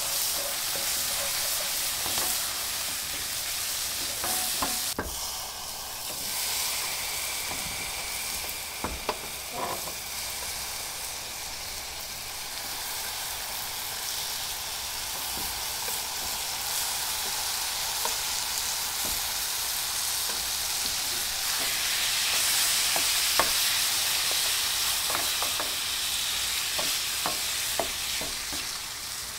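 Onions, peppers and tomato paste sizzling in a stainless steel skillet while a wooden spatula stirs and scrapes the pan, with scattered knocks of the spatula. Partway through, diced tomatoes are scraped into the pan from a cutting board and the stirring and sizzling carry on.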